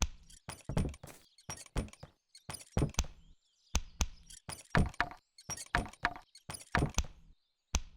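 Cartoon foley of a foot brace clacking and knocking in rhythm with each step: a run of sharp clacks, several a second.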